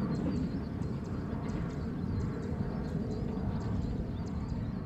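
Boeing 737-800's CFM56-7B jet engines giving a steady low rumble as the airliner climbs away after takeoff. Faint high chirps sound over it.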